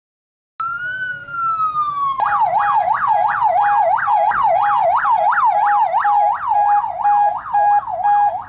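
Electronic vehicle siren, of the kind on a convoy escort's roof light bar. It starts with one slow wail that rises then falls, switches about two seconds in to a fast yelp of about three sweeps a second, and breaks into short bursts near the end.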